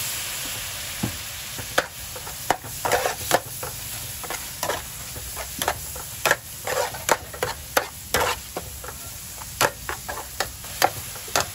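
Sliced beef, egg and chopped chili sizzling in a metal frying pan while a metal spatula stirs and scrapes through them. The spatula clinks against the pan many times at irregular intervals over a steady frying hiss, which is strongest in the first second.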